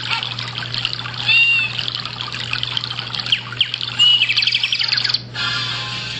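A birdsong ringtone on a Samsung SCH-E370 mobile phone: quick bird chirps and short whistles over a trickling-water hiss. A little after five seconds it breaks off and a different tone begins.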